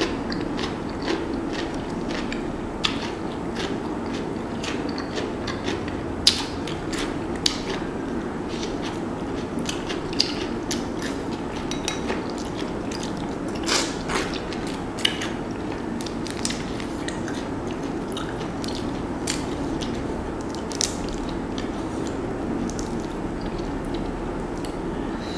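Close-up eating sounds: chewing and mouth smacks on boiled shrimp, with shrimp shells cracked and peeled by hand, making a stream of small irregular clicks and crackles over a steady background hum.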